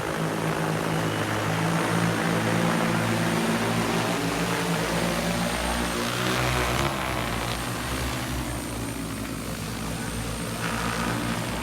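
Multirotor agricultural spray drone (XAG P100) flying, its propellers giving a steady multi-tone drone whose pitch shifts up and down about halfway through, then slightly quieter.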